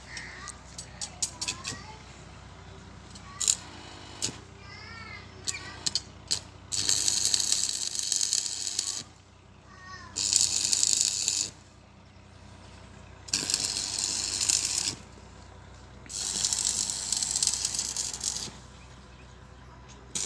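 Hiss from a hand-held nozzle on a hose, in four separate bursts of one to two seconds each in the second half. Before them come light clicks and rattles of metal parts.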